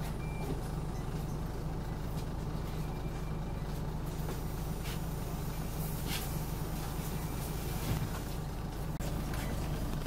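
Scania OmniCity double-decker bus's diesel engine idling with a steady low hum, heard from inside the passenger saloon.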